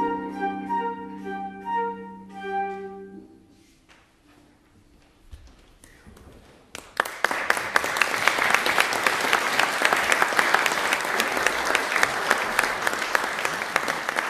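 A live instrumental piece ends on a held note about three seconds in. After a short hush, the audience applauds steadily.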